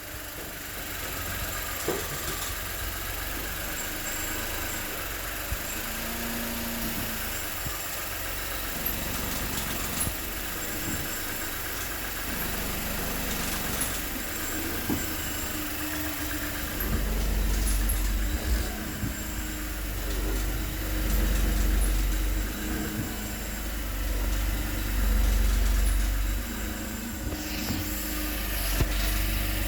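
Volkswagen Virtus 200 TSI 1.0 turbo three-cylinder engine running, with a low rumble that grows louder about halfway through and scattered faint clicks. The owner hears a strange noise in it and does not know its cause.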